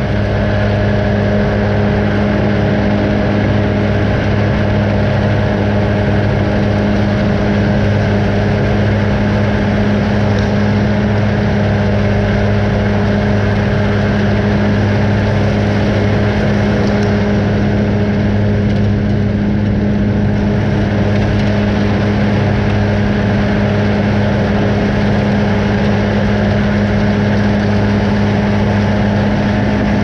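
Claas Arion 530 tractor's engine and its rear-mounted Kuhn disc mower running steadily under load while cutting grass, a loud, even hum with a steady drone and no changes in pace.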